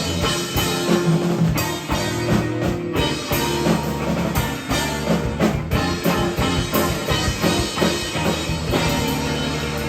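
Rock music played by a band with drum kit: steady drum hits under sustained bass and guitar notes.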